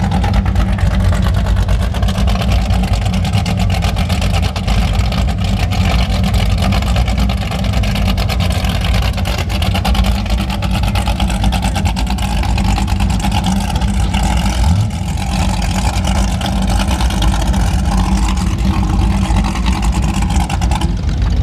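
Engines of high-performance catamaran powerboats idling close by, a loud, steady low rumble.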